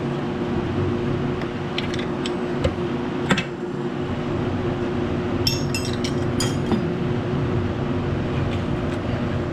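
Wrench clinking on a nut welded onto a broken bolt as it is turned out: a few sharp metal clicks, then a quick run of bright clinks about five and a half to seven seconds in, over a steady background hum.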